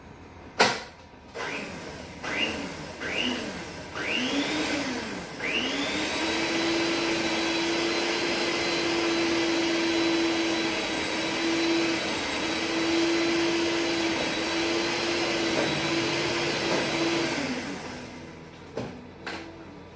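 Electric hand mixer beating cake batter in a bowl. A knock comes first, then the motor starts and stops in several short bursts, each rising in pitch. From about five seconds in it runs steadily with an even hum, then winds down and stops near the end.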